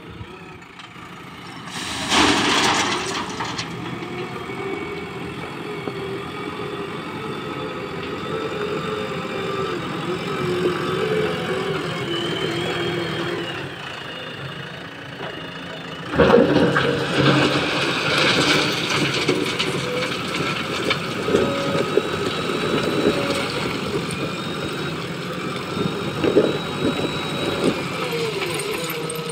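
A JCB Eco Xpert backhoe loader's diesel engine running and revving as it works. About two seconds in there is a loud crash of ballast stones tipped from the front bucket into a tipper truck. From about halfway the engine works harder and is louder, with knocks and rattling of stones near the end as the bucket digs into the ballast pile.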